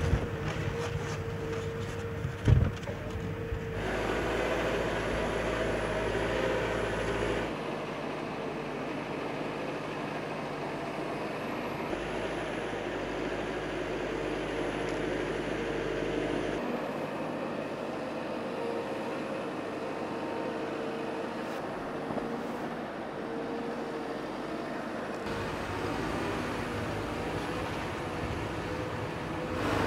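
Komatsu 835 forestry forwarder's diesel engine running steadily as the machine drives, with one sharp knock about two and a half seconds in. The sound changes abruptly several times.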